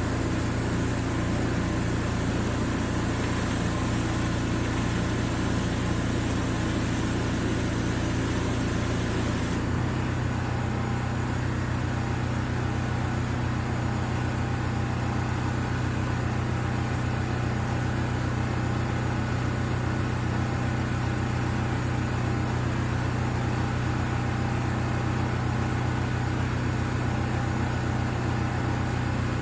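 Pressure washer's engine running steadily under load, a constant low drone with spray hiss; about ten seconds in the sound shifts abruptly and goes on just as steadily.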